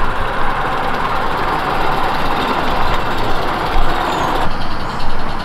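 Small live-steam garden-railway locomotive running with its train of coaches: a steady hiss of steam with the train rolling on the track. The upper part of the hiss thins out about four and a half seconds in.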